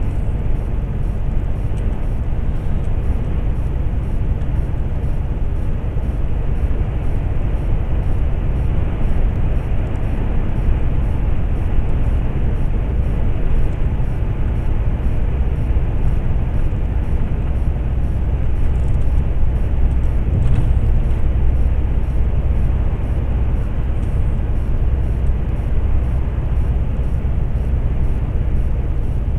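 Steady low rumble of a lorry cruising at motorway speed, its engine drone and tyre and wind noise heard from inside the cab.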